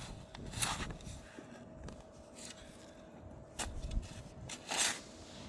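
Digging in garden soil: four or five short scraping, crumbling rustles of dirt being dug and pushed aside, over a faint steady hum.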